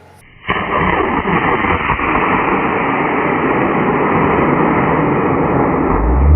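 Mid-power model rocket motor igniting about half a second in and burning with a loud, steady roar for about five seconds.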